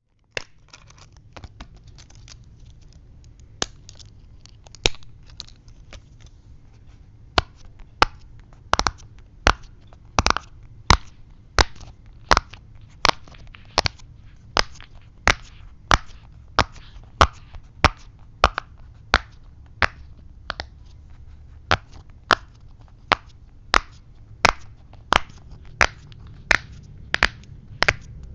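Silicone pop-it fidget toy's bubbles being pressed one after another, each giving a sharp pop. A few scattered pops at first, then from about a quarter of the way in a steady run of about one and a half pops a second.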